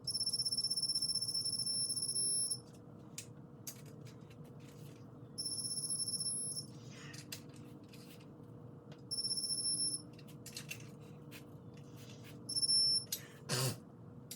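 Digital torque wrench beeping with a steady high tone as each crankshaft main bolt reaches its set torque, four beeps of different lengths, the first about two and a half seconds long, with light clicks of tools between them. A loud metallic clunk near the end.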